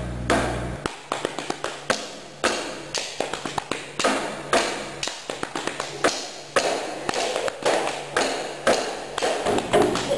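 Irregular sharp taps and knocks, several a second; low background music cuts off about a second in.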